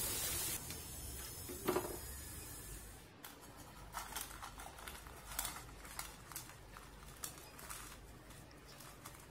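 Hot oil sizzling in a frying pan as potato fries are lifted out with a wire strainer, with a single knock about two seconds in. After a break, faint light ticks and rustles of the fried potatoes sliding off the wire strainer onto a plate.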